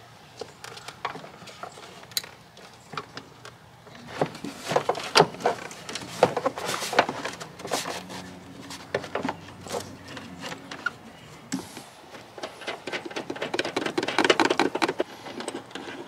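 Plastic cargo-area trim panel of a Jeep Wrangler JKU being handled and pushed back into place: irregular clicks, knocks and rattles, coming in busy flurries from about four seconds in and again near the end.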